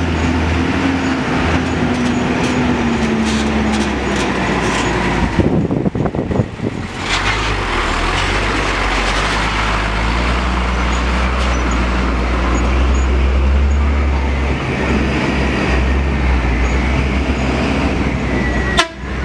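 Hino diesel tanker trucks' engines running at low speed, a steady deep rumble, as the trucks crawl through soft sand and dirt.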